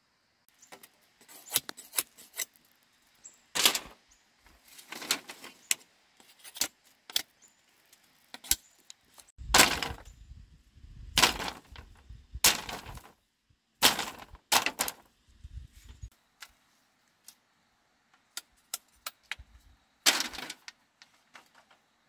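Bamboo knocking and clattering as it is handled and worked: an irregular string of sharp knocks, some followed by a short rattle, loudest in a cluster around the middle.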